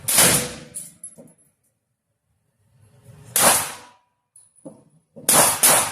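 Rifle shots from a double-barrel AR-15: one right at the start, another about three seconds later, then two in quick succession near the end, each with a short ringing tail.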